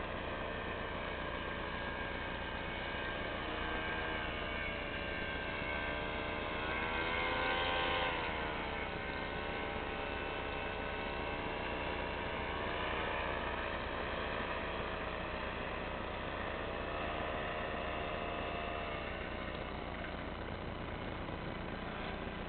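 Powered paraglider's engine and propeller droning in flight, its pitch wavering up and down and loudest about eight seconds in, over a steady low hum.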